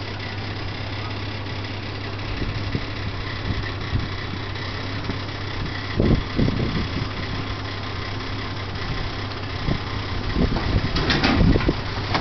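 Pontoon boat's outboard motor idling with a steady low hum as the boat creeps in at low speed, with a few louder rough bursts about six seconds in and again near the end.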